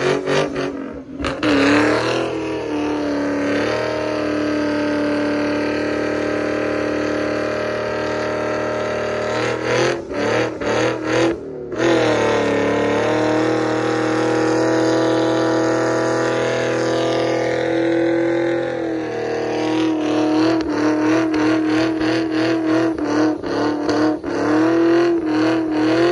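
Car engine held at high revs through a tire-smoking burnout, the driven tires spinning against the pavement. The engine note holds steady for long stretches, cuts out briefly about a second in and again around the middle, and stutters rapidly and rhythmically at the start and through the last several seconds.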